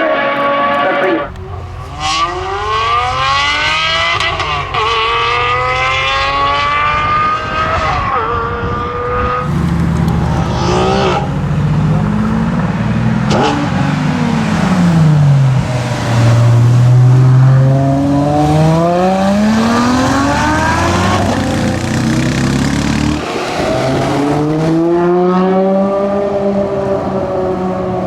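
V12 supercar engine pulling hard at full throttle through a series of upshifts. Its pitch climbs again and again, with a brief break at each shift. About halfway through the revs drop away and build up again.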